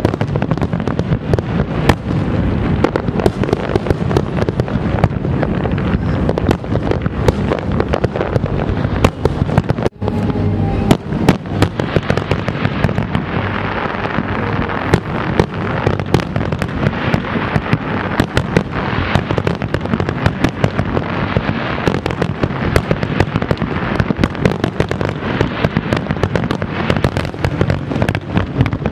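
Large aerial fireworks display: a continuous barrage of rapid bangs and crackling bursts, with a momentary gap about ten seconds in.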